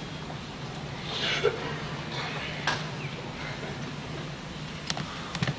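Murmur and rustle of a large audience and standing graduates in an auditorium, under a steady low hum, with a brief hiss about a second in and a few sharp clicks near the end.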